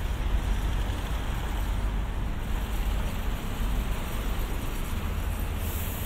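Street traffic: a steady low rumble of passing vehicles, with a short hiss near the end.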